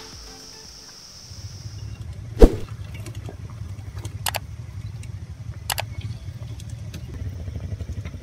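Trail motorcycle engines idling with a steady, low pulsing rumble that starts about a second in, with one loud knock a little later and a few sharp clicks.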